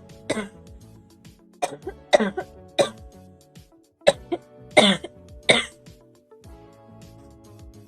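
A young woman coughing repeatedly in short fits: about eight sharp coughs in three bunches over the first six seconds, then only quieter sounds. Steady background music plays underneath.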